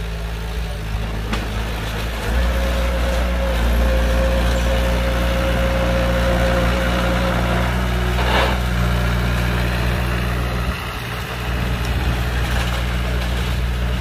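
Heavy diesel earthmoving machinery engine running, louder from about two seconds in, with a thin steady whine for several seconds. There is a short burst of noise about halfway through, and the engine eases off briefly near the end before picking up again.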